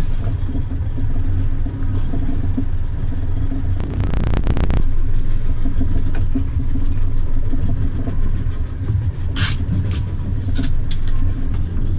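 A motor engine running steadily with a low rumble. About four seconds in there is a brief rattling clatter, and near the tenth second a short hiss.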